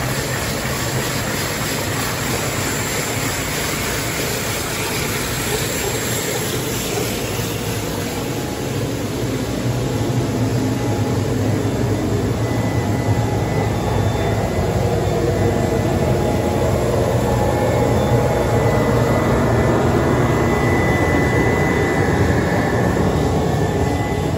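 HTC concrete floor grinder and Ermator industrial dust extractor running together: a steady, loud machine drone with a low hum underneath. It grows a little louder about ten seconds in.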